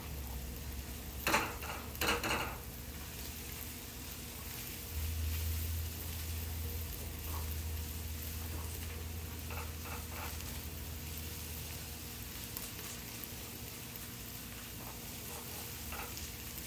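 Chopped onion, garlic and ginger sizzling in oil in a skillet, stirred with a silicone spatula. The spatula scrapes against the pan twice about a second and two seconds in, with lighter scrapes later.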